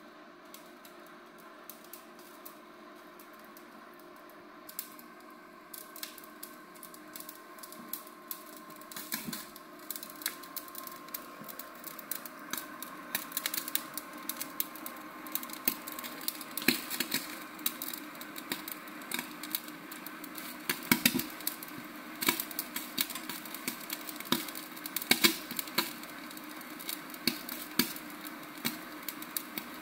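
Meat searing under the red-hot infrared top burner of a Klarstein Steakreaktor electric grill: the fat spits and crackles in sharp irregular pops. The pops start a few seconds in and grow denser and louder, over a faint steady hum.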